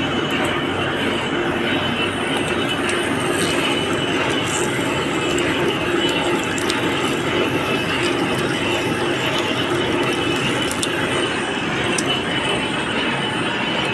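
Metal lathe running steadily while a single-point tool cuts a coarse thread into a long steel screw shaft: a continuous machine hum and cutting hiss with a steady low tone, and scattered light clicks.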